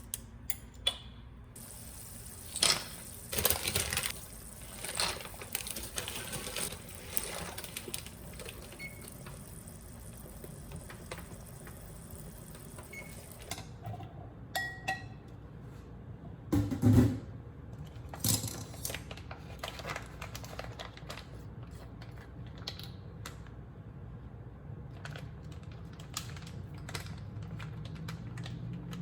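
Kitchen sounds: scattered clinks and knocks of dishes and utensils, with a steady hiss, likely running water, through the first half. A heavier thud comes about two-thirds of the way in.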